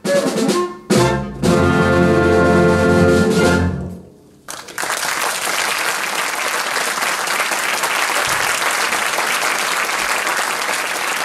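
Concert wind band of saxophones, brass and drums ending a piece: two short accented chords, then a held final chord that cuts off about four seconds in. After a brief pause the audience applauds steadily.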